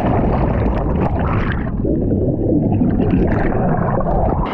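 Water churning and bubbling as heard by a submerged camera: a loud, muffled low rumble with small crackles of bubbles. It changes abruptly near the end as the camera breaks the surface.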